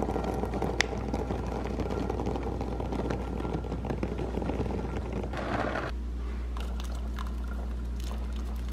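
Dry tapioca pearls pouring and clattering into a glass measuring cup, a dense rattle of many small hard clicks over a steady low hum. About five seconds in it gives way to a steadier, quieter sound of water boiling in a saucepan.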